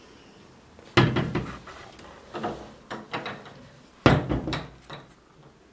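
Glass-fronted cabinet doors being pushed shut: a sharp knock about a second in and another about four seconds in, with lighter knocks between and after.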